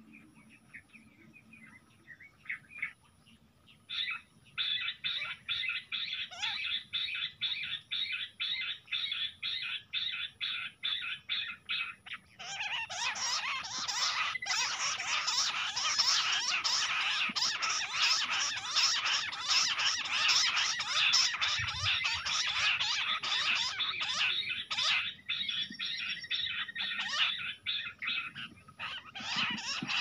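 Jungle bush quail calling: after a few quiet seconds, a quick series of high, repeated chirping notes, then about twelve seconds in a louder, dense chattering chorus of calls that eases off into scattered calls near the end.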